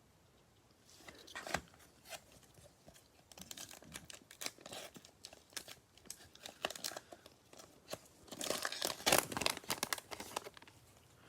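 Cellophane wrapper of a Panini Prizm football cello pack crinkling and tearing as it is handled and opened by hand. Scattered crackles and small clicks, busiest about eight to nine seconds in.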